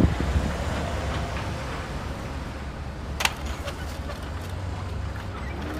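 Plastic wheels of a Bruder MACK Granite toy truck and its low-loader trailer rolling as it is pushed by hand: a steady low rumble, with one sharp click about three seconds in.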